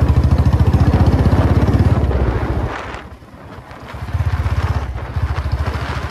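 Royal Enfield Classic 350's single-cylinder engine pulling the motorcycle along under throttle, its exhaust thumping rapidly and evenly. The thump drops away for about a second near the middle, then builds again as the bike works up through the gears. Wind on the microphone.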